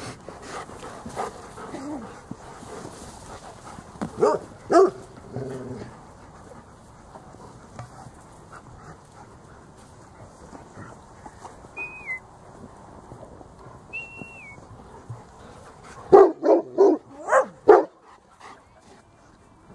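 A dog barking: two barks about four seconds in, then a quick run of about five barks near the end.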